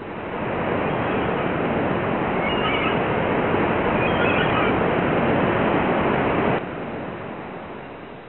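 Steady rushing surf noise with two brief clusters of short, high calls, about two and a half and four seconds in. The noise drops suddenly near the end and fades away.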